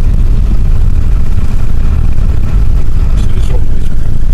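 Steady low rumble of a car driving on snow-packed, icy road, heard from inside the cabin.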